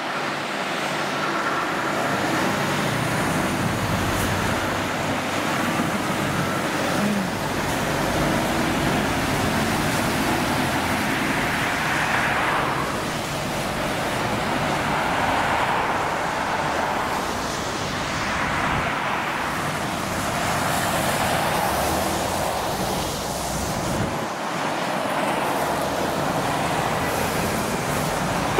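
Road traffic on a busy motorway, cars and trucks passing in a continuous stream. The noise swells and fades as individual vehicles go by.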